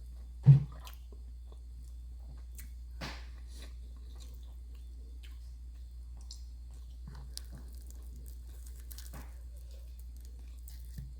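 Close-up eating sounds: chewing and biting food, with scattered small wet clicks and smacks over a steady low hum. A loud low thump comes about half a second in.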